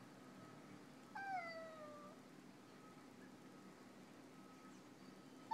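A housecat's single drawn-out meow, falling in pitch, about a second in, with another meow starting right at the end: the cat is asking to be let outside.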